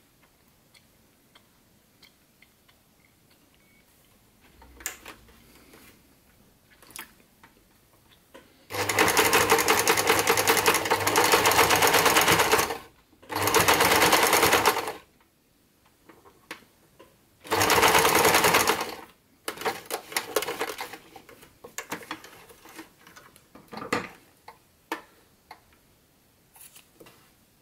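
Electric household sewing machine stitching a ribbon onto a fabric mask in three runs of a few seconds each, the second and third shorter. Small clicks and fabric-handling sounds come before and between the runs.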